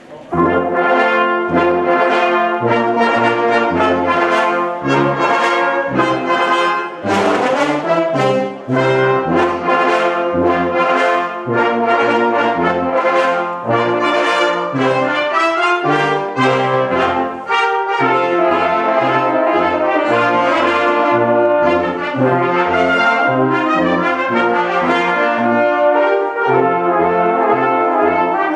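Upbeat instrumental music led by brass, with horn-like melody lines over a bass that moves in short, separate notes.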